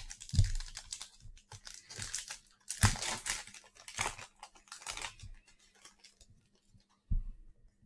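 Packaging being torn open and crinkled as a 2021 Mosaic Football trading-card mega box is opened: a run of rustling tears that dies down after about five seconds. A single thump near the end.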